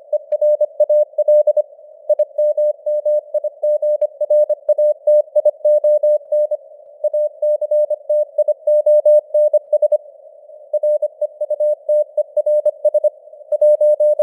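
Morse code sent at 25 words per minute: a single-pitch beep keyed rapidly on and off into dots and dashes, with brief pauses between words. A narrow band of simulated radio static hisses around the tone throughout.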